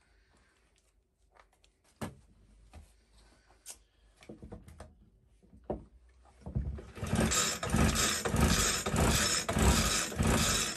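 Weed Eater hedge cutter's small two-stroke engine being pull-started. A few handling knocks come first, then about six and a half seconds in a loud run of cranking strokes on the recoil starter lasts about four seconds and stops abruptly. The owner has already found that the engine has no compression.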